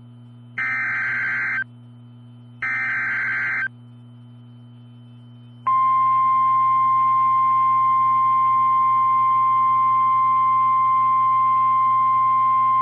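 Emergency Alert System signal from NOAA Weather Radio for a severe thunderstorm warning: two buzzy, warbling bursts of SAME digital header data, about a second each, then about two seconds later the steady single-pitch attention tone starts and holds. A low hum runs underneath.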